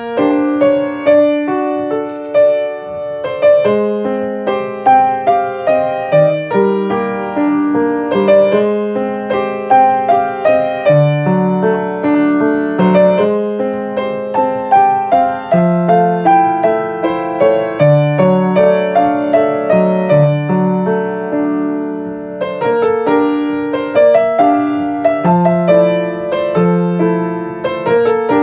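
Solo piano playing an original piece: a melody over a moving bass line, with notes struck steadily throughout.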